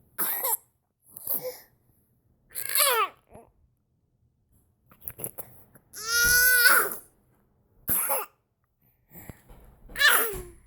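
A girl in a coughing fit: about eight separate coughs spread through the stretch, several ending in a voiced sound that falls in pitch, with a longer held voiced sound about six seconds in. The fits recur and their cause is unknown; her parent wondered about an allergy.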